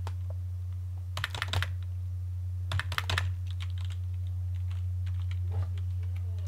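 Computer keyboard keys typed in two quick bursts of clicks, with a few single keystrokes after, as a long number is entered. A steady low hum runs underneath.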